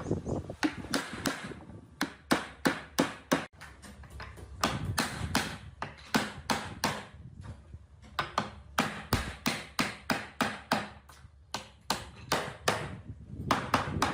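A tool striking wood, repeated sharp knocks in runs of about three to four a second with short pauses between runs.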